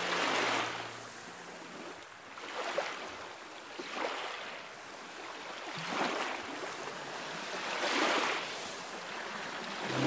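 Sea waves washing in, in slow swells every two seconds or so.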